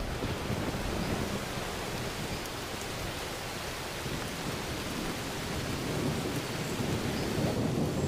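Steady heavy rain falling on wet ground and grass, with a low rumble underneath.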